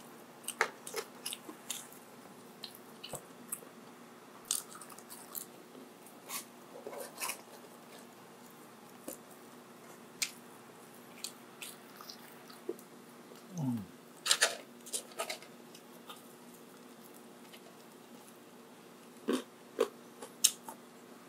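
A person eating close to the microphone: chewing, biting and wet mouth clicks come in scattered spells. About two-thirds of the way through there is a brief low sound that slides down in pitch, likely a swallow or throat sound.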